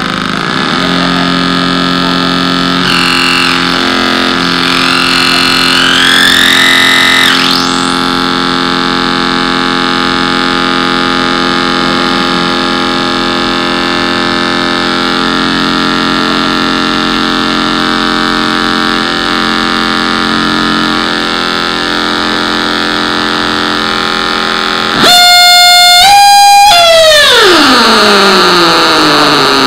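Mixing-desk feedback loop played through amplifiers: a dense buzzing drone of many held tones shaped by turning the desk's knobs. A few seconds in, a wavering whistle rises in pitch. Near the end a louder piercing tone cuts in suddenly, steps up, then slides steadily down.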